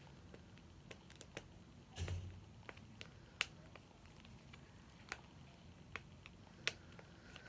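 Faint, scattered clicks and taps of a plastic Mini Brands ball capsule being worked at by hand, with a short scuffle about two seconds in; the capsule is stiff and hard to open.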